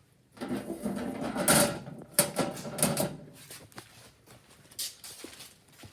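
Handling noise: rustling and clattering with several sharp clicks between about half a second and three seconds in, then a few fainter clicks.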